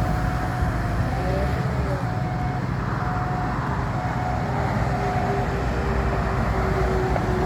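Skid steer loader's engine running steadily under work, with a high thin whine that comes and goes roughly once a second over the rumble.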